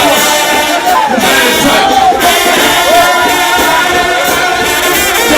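Brass shout band playing loud, continuous gospel music, with gliding, voice-like melody lines and congregation voices singing along.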